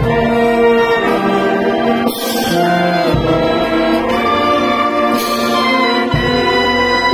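Marching band of saxophones, clarinets, trumpets, baritone horns and sousaphones playing a tune in held, changing notes, with deep sousaphone bass notes coming in about three seconds in and again about six seconds in.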